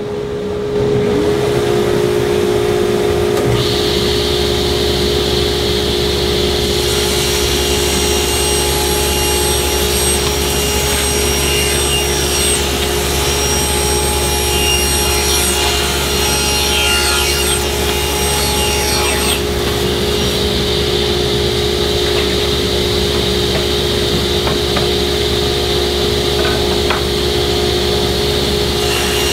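Table saw running, joined about four seconds in by a shop vacuum whose hose is held at the blade to catch the small offcuts. From about 7 to 19 seconds the blade cuts through a walnut board, adding a rough sawing noise, then the saw and vacuum run on.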